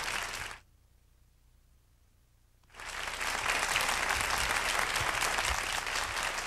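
Studio audience applauding and cheering, cut off abruptly about half a second in by a gap of near silence lasting about two seconds, then applause again.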